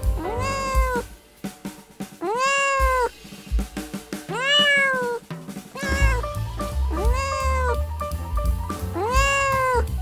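A cat meowing over and over, about six drawn-out meows that rise then fall in pitch, over background music with a drum beat.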